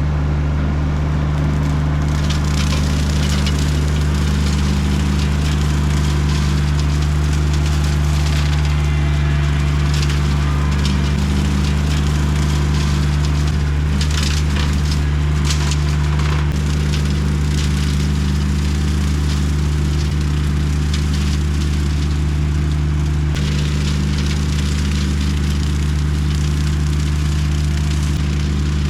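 Compact diesel tractor running steadily at working speed while its rotary brush hog mows and shreds brush and weeds. The cutting brings crackling and splintering of woody stems that comes and goes, and eases off for several seconds past the middle.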